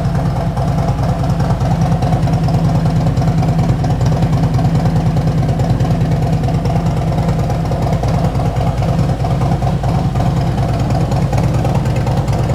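Harley-Davidson Road Glide Special's V-twin engine idling steadily after a Stage 2 upgrade, a loud, even, rapidly pulsing rumble with no revving.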